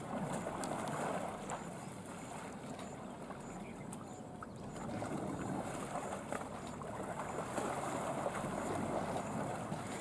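Lake water sloshing and splashing around wading Sri Lankan elephants as they push against each other, with wind rumbling on the microphone.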